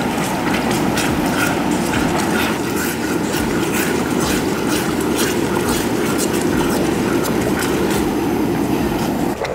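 Wooden spatula stirring and scraping against the bottom of a bronze uruli, with rapid irregular clicks, over a steady rush of arrowroot slurry being poured into the hot payasam. The pouring rush stops abruptly near the end while the stirring carries on.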